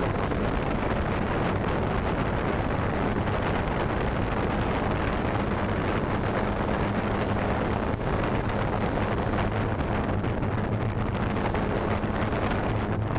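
Quadcopter drone's motors and propellers heard from its own onboard camera while it hovers, a steady hum under heavy wind noise from the prop wash on the microphone.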